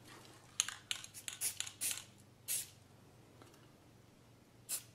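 Aerosol spray paint can giving short spurts to touch up a weld: a quick run of brief hisses in the first couple of seconds, then a pause, then one or two more near the end.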